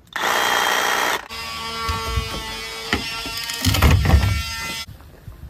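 Bauer 20-volt cordless reciprocating saw cutting through a fiberglass boat bulkhead. The cutting is loudest for about the first second, then the saw runs on more lightly with a steady motor whine, with a few low knocks around four seconds in. It stops about five seconds in.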